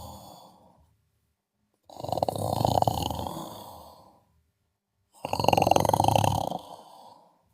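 Snoring in a regular rhythm: the end of one snore fades out at the start, then two full snores of about two seconds each, a little over three seconds apart, with silence between breaths.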